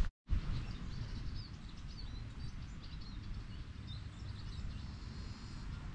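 Open-air ambience: faint, high bird chirps scattered over a steady low rumble, after a split second of silence at the start.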